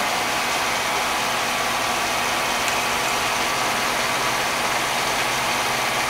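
Monarch 10EE precision toolroom lathe running under power with its spindle turning: a steady, even mechanical hum.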